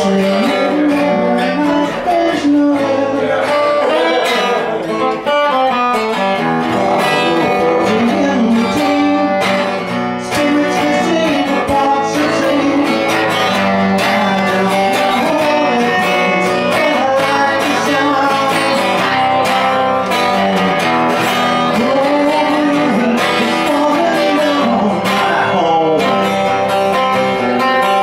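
A woman singing a folk-rock song while strumming a guitar.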